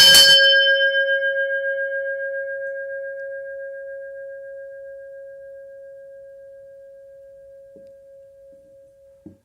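Bronze bell with a clapper, ringing out after a single strike: one clear pitched tone with a higher overtone. It fades slowly with a gentle waver over about nine seconds and is stopped short near the end.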